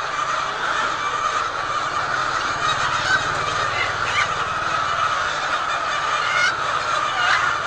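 A flock of laying hens clucking and calling over one another in a steady, continuous din, with a faint low hum underneath.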